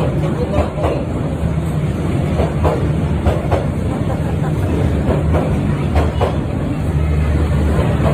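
A train running on rails: a steady low drone with irregular sharp clacks and knocks over it.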